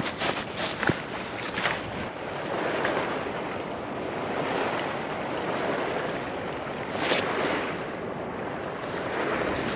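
Sea waves washing and surging, swelling and ebbing, with wind buffeting the microphone; a few sharp clicks in the first two seconds and a brief louder gust or splash about seven seconds in.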